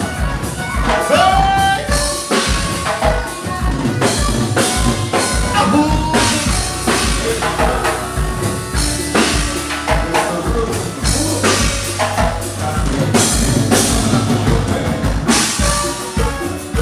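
Loud Tejano band music with a steady drum-kit beat and singing.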